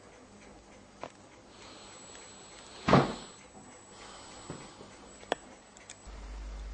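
A few sharp knocks and clicks of something being handled, the loudest a single thump about three seconds in. A steady low hum starts near the end.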